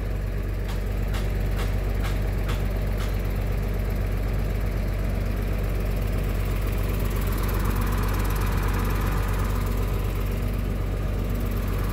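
Diesel engine of a Mercedes-Benz OH 1521 bus, turbocharged and intercooled, running steadily at idle with a deep rumble. A few light clicks come over the first three seconds.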